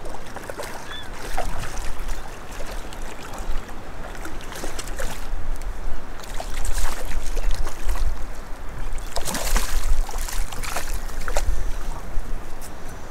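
Water lapping and splashing around a small open boat while a fish is reeled in on a spinning rod, with scattered clicks and knocks from the reel and boat. A louder run of splashes about two-thirds of the way through, as the hooked bass thrashes at the surface before it is swung aboard.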